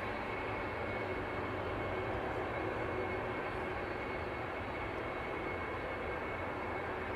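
Boeing 767-300ER jet engines running: a steady, even jet noise with a faint high whine.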